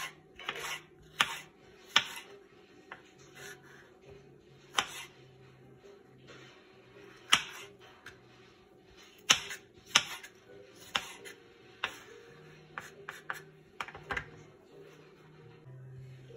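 Chef's knife slicing mini sweet peppers on a bamboo cutting board: sharp knocks of the blade striking the board at an uneven pace, roughly one every second or so.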